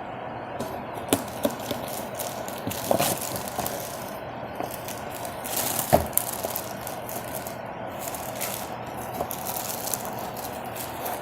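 Handling noise from unboxing a steel lawnmower blade: rattling, scraping and small clicks as the packaging is opened and the blade taken out, with one sharper knock about six seconds in.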